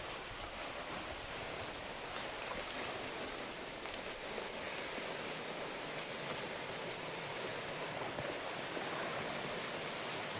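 Steady wash of sea waves on the shore, an even rushing with no breaks, with a few faint high-pitched trills spread through it.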